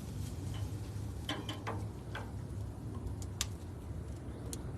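Scattered light clicks and ticks, about eight in all and irregularly spaced, over a low steady hum.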